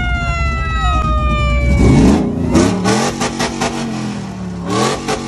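A siren wail from a handheld megaphone, one held tone sliding slowly down in pitch and dying out about two seconds in. After it, a pickup truck's engine revs up twice, about two and five seconds in.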